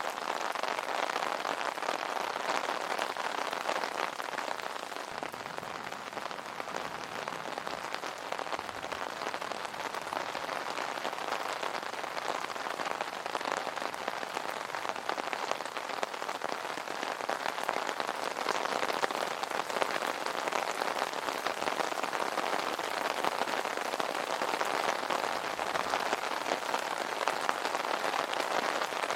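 Steady rain falling on an umbrella canopy, a dense continuous patter of drops.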